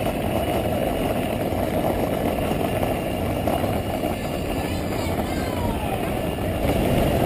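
Wind buffeting the microphone of a camera mounted on a moving bicycle: a steady low rush of wind noise.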